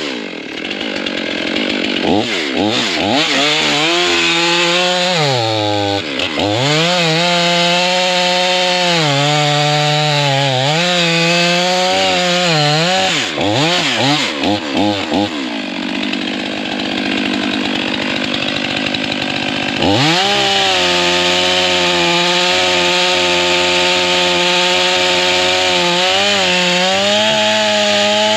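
Two-stroke chainsaw revving up and down several times as it works into a white oak log. It then runs at steady full throttle through the cut for the last several seconds.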